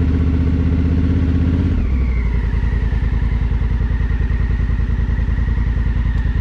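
Adventure motorcycle engine running on light throttle, then dropping to idle about two seconds in as the bike comes to a stop. It then idles with an even pulse.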